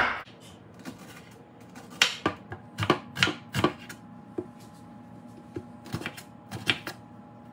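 Kitchen knife slicing a red onion on a bamboo cutting board: a dozen or so irregular knocks of the blade hitting the wood.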